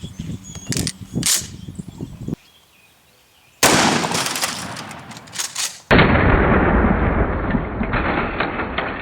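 A 12-gauge shotgun loaded with a 3-inch double-aught buckshot shell fires once, a sudden loud blast about three and a half seconds in that dies away over a couple of seconds. From about six seconds in comes a loud, duller, muffled blast noise.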